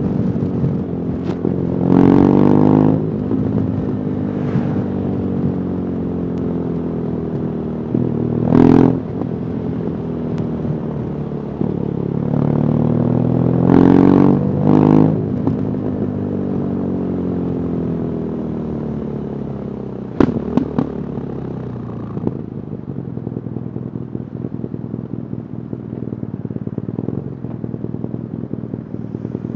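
BMW R nineT Urban GS boxer twin running through its stock exhaust, its pitch rising twice under acceleration and falling away in between. A few sudden sharp pops stand out, which the rider puts down to a sound-recording fault. Near the end the engine settles to a low, steady pulse.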